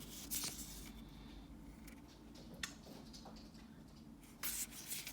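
Magic: The Gathering trading cards from a Modern Horizons booster being flipped through by hand: faint slides and flicks of card stock, with a brief rustle about half a second in, a single click in the middle, and another rustle near the end.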